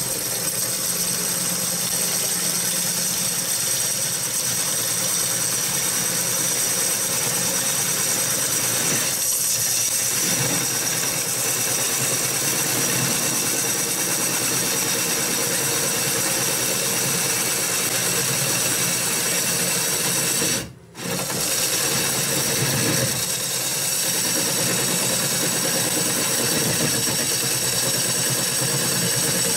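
Wood lathe spinning a river birch bowl blank while a bowl gouge cuts into it: a steady hiss of cutting over the motor's steady high whine. The sound drops out for a moment about two-thirds of the way through.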